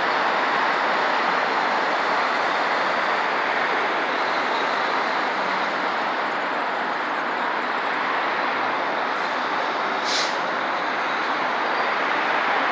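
Steady roar of heavy expressway traffic, cars and semi-trailer trucks passing close by, with a short hiss about ten seconds in.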